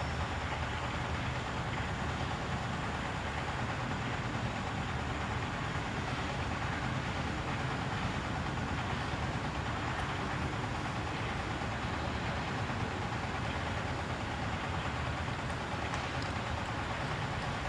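Steady outdoor background noise, an even rumble and hiss with no distinct events.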